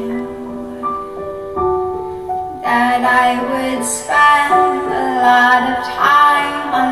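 Live acoustic song: a woman's singing voice over piano accompaniment. Held chords ring alone for the first two seconds or so, and the voice comes in about two and a half seconds in, with a light vibrato on the held notes.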